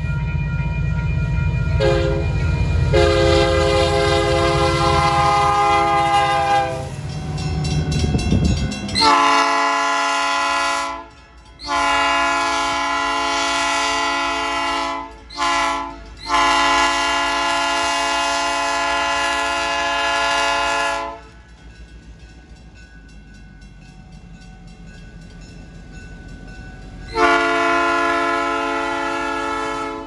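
Diesel train horns at grade crossings. First a multi-note horn sounds over the heavy rumble of a passing train. Then, after a cut about nine seconds in, a streamlined cab-unit locomotive's horn blows the long-long-short-long crossing signal, the freight cars roll by more quietly, and the horn blasts once more near the end.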